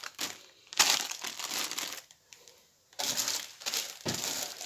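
Plastic wrapping crinkling and rustling as plastic-bagged cones of cord are handled, in two spells with a pause of about a second in the middle.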